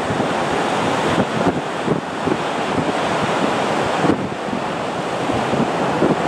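Boeing 737-200's Pratt & Whitney JT8D jet engines running during the landing rollout just after touchdown: a loud, steady rush of jet noise, with wind buffeting the microphone.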